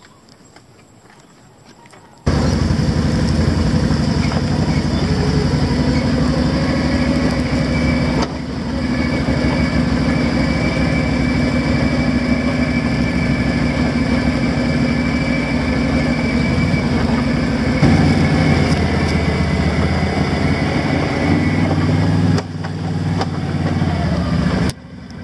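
Automatic ATV engine running steadily under way on a dirt trail, heard close up from the handlebars. It comes in abruptly about two seconds in, after a quieter start.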